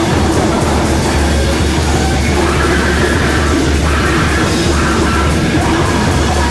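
Free-improvised noise music from two electric guitars with drums and percussion: a loud, unbroken, distorted wall of sound over a low droning hum, with wavering held tones drifting through it.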